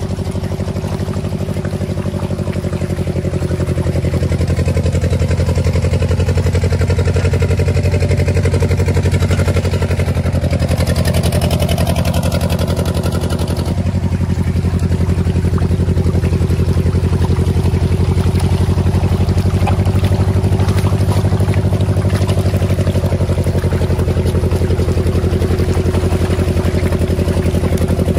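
Small engine running steadily, driving a feed mincing machine that grinds fish feed.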